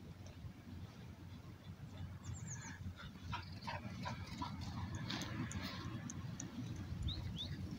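Dogs at play, making short scattered noises over a steady low rumble, with a few brief high chirps near the end.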